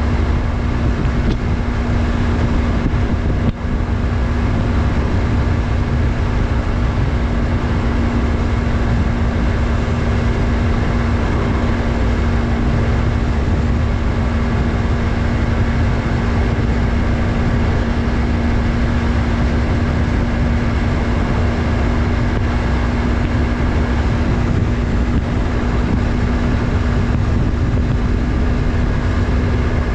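Yamaha MT-03's 321 cc parallel-twin engine running at a steady speed while riding, a constant engine note over a low rumble of wind and road noise. The sound drops out for a moment about three and a half seconds in.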